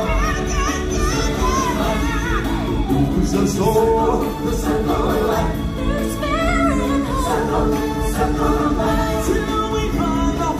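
Stage-show music with a choir and singers over a strong, steady bass, played loud through the arena's sound system.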